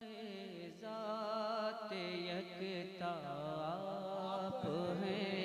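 A man singing the drawn-out, wordless melodic opening of a naat into a microphone, long held notes that waver and glide in pitch.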